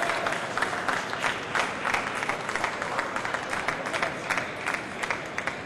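A group of people applauding, many quick hand claps over a wash of voices, easing off slightly toward the end.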